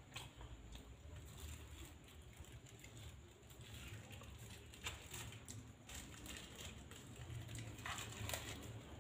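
Small plastic food bag crinkling as it is opened and handled, with scattered small clicks and a few eating sounds near the end, over a steady low hum.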